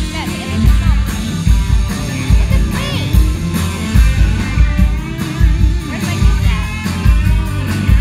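Live band playing rock music over a PA, with a singer and a steady, bass-heavy beat.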